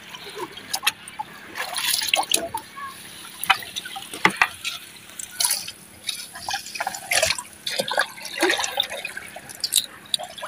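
Water splashing and dripping in short, irregular bursts as fish are worked free of a wet gill net at the water's surface.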